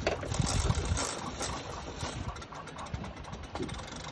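A fishing boat's engine idling, with a rush of noise during the first second and a half.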